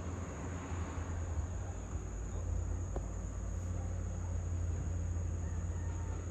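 Low, steady drone of a distant Komatsu hydraulic excavator's diesel engine, with insects trilling steadily at a high pitch over it.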